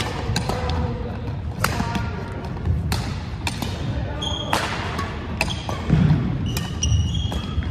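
Badminton rally: rackets striking the shuttlecock with sharp clicks, and sneakers squeaking and thudding on the wooden court floor, the squeaks coming mostly in the second half.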